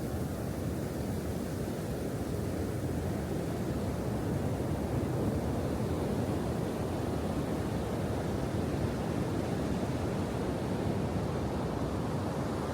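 Steady rushing noise of wind and sea, an even hiss heaviest in the low range, with no distinct events or tones.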